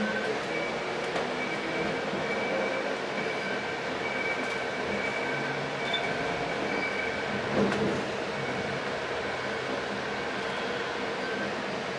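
Light rail car running, heard from inside the car: a steady rumble with a few held high tones, and one short thump about seven and a half seconds in.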